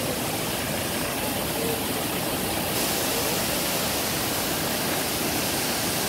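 Waterfall rushing steadily: an even, unbroken hiss of falling water that brightens slightly about three seconds in.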